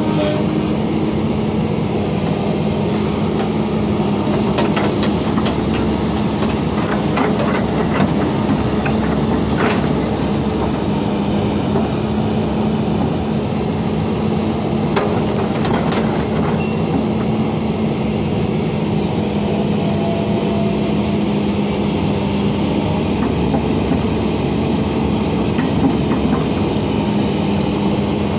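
Crawler excavator's diesel engine running steadily with a constant low hum, with scattered metallic clanks and rattles as the machine tracks and works its arm.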